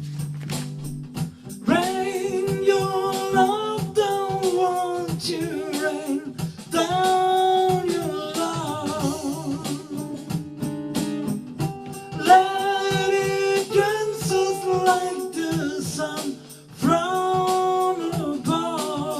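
Soul music: a singing voice holding long wavering notes in four phrases over guitar accompaniment.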